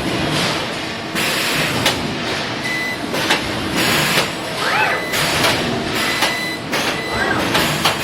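FANUC spot-welding robot cell at work: repeated short bursts of hissing noise, roughly every half second to a second, over steady machine noise. Brief whines rise and fall in pitch, and a thin high tone comes and goes.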